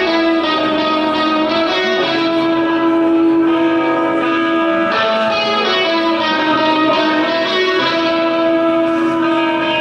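Wrestler's entrance music, a guitar-led piece playing a melody of long, held notes.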